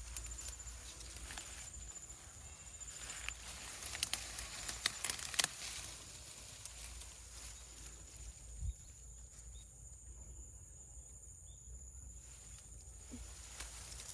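Footsteps through forest undergrowth, with a cluster of sharp snaps and crackles about four to five and a half seconds in, over a steady high insect drone.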